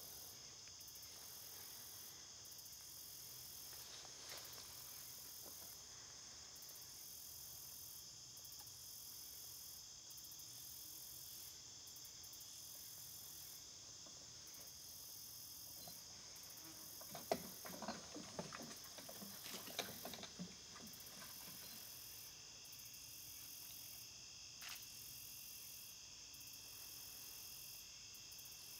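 Faint, steady outdoor chorus of crickets and other insects, several high trills overlapping, one of them pulsing on and off. About two-thirds of the way through comes a brief cluster of irregular clicks and rustles.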